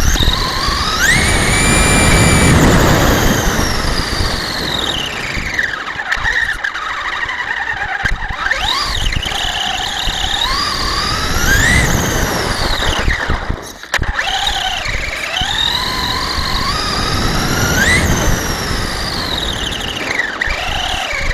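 Traxxas Stampede RC truck's electric motor and gears whining, the pitch climbing and falling again and again with the throttle, over a low rumble. The whine cuts out briefly about two-thirds of the way through.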